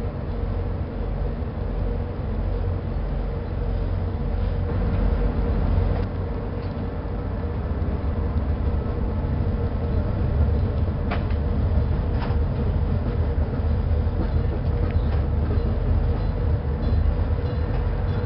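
ADtranz diesel locomotive running as it moves slowly along the track, a steady low engine rumble and hum. Two sharp clicks about a second apart come just past the middle, as the wheels pass over rail joints.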